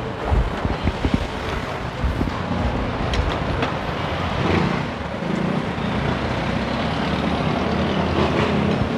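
Steady motor-vehicle traffic noise, with a few light clicks and knocks in the first few seconds.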